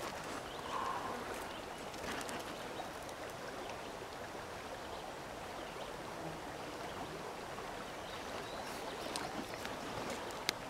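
Steady rush of creek water flowing, with a few faint clicks and one sharp click near the end.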